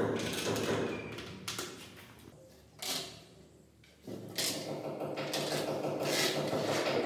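Scraping, rubbing and light knocks from a plastic edge-banding strip and a laminated board being handled, over a steady low hum. It goes nearly quiet for a moment near the middle.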